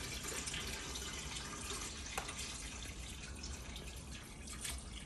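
Water being poured from a jug into a small aquarium tank, a steady trickling and splashing as the tank fills.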